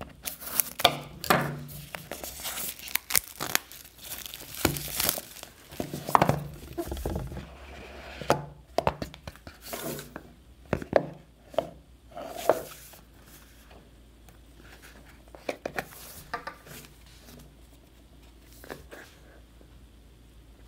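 Plastic shrink-wrap on an iPhone SE box being slit with a knife, torn and crinkled off, then the cardboard lid and tray being handled with rustles, scrapes and light taps. The handling thins to a few faint clicks in the second half.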